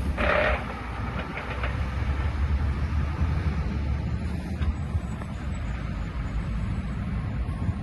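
Diesel engine of a Mercedes-Benz Actros concrete pump truck running steadily with a low rumble, with a short hiss in the first half second.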